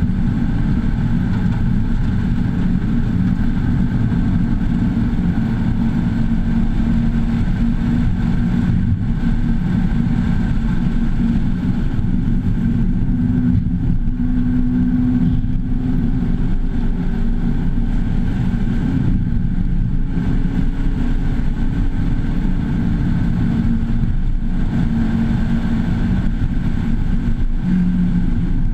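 Mazda2's four-cylinder engine pulling hard on track, its pitch rising and falling with the throttle and corners. Heard from inside the cabin as a steady, loud drone mixed with road noise.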